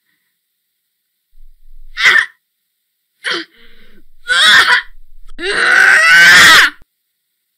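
A woman's straining grunts and groans: three short ones, then a longer, louder groan near the end, the sounds of someone struggling to pull free of her bonds.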